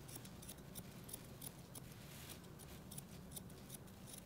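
Grooming shears snipping through a puppy's coat: faint, quick metallic snips, roughly two to three a second, irregularly spaced.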